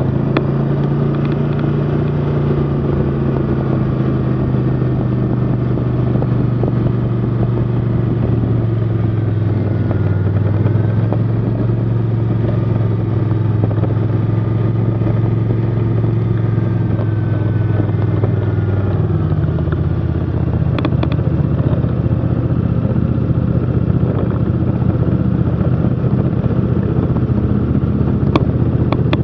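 Snowmobile engine running steadily at low speed. Its sound changes about two-thirds of the way through as the sled slows almost to a stop.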